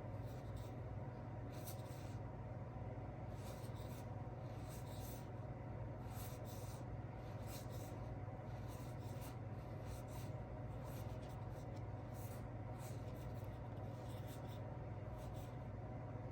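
Short, scattered rustles and scrapes of cardboard and paper board-game pieces being handled and unpacked, over a steady low hum.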